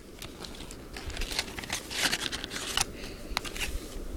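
Cardboard Trident Vitality gum box being handled and slid open: light scraping and rustling of the packaging with a few small clicks, busiest about two seconds in.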